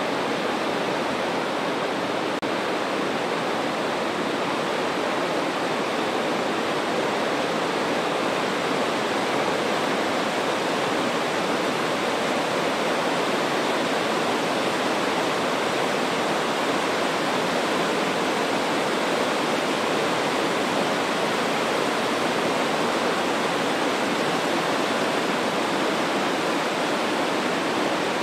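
River rapids rushing over rocks: a steady, unbroken rush of whitewater.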